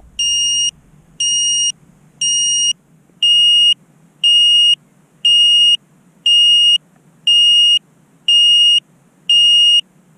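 Emax Hawk FPV quad's lost-model beeper sounding a steady high-pitched beep about once a second, each beep about half a second long, as it lies crashed.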